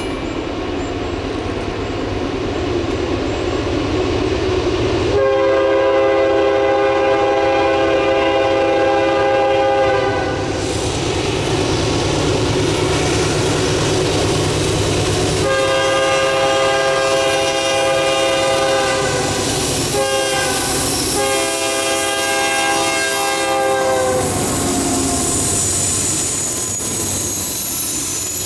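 Horn of the lead locomotive, a GE AC44CW, on a freight train, sounding the grade-crossing signal: two long blasts, one short and a final long one. Under the horn is the rumble of the approaching diesel locomotives. Near the end the locomotives pass close by and their engines get louder.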